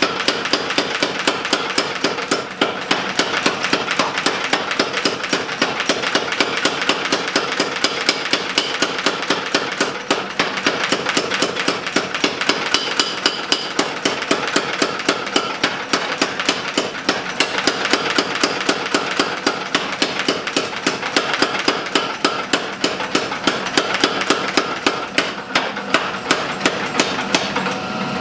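Mechanical power hammer pounding a red-hot bar of soft iron and steel in a rapid, even run of blows that goes on without a break.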